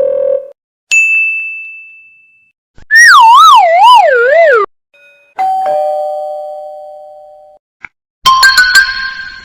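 A run of short sound effects: a buzzer tone cutting off, a single high ding, a wobbling whistle-like tone sliding downward, then a two-note ding-dong doorbell chime, and near the end a burst of bright bell-like tones.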